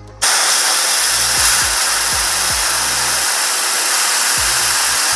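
Compressed air blasting from an air chuck into a 3D-printed air-raid siren rotor, heard as a loud, steady hiss that starts abruptly and cuts off about five seconds later. The siren's own tone is drowned out by the air.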